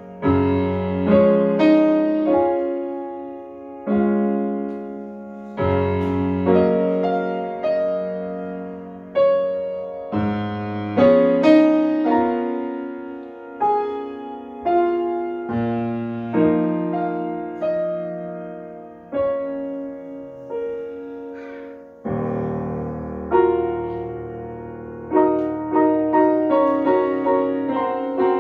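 Grand piano played solo: chords and melody notes struck and left to ring, each fading before the next is played. A deep bass note enters about two-thirds of the way through and is held under the chords that follow.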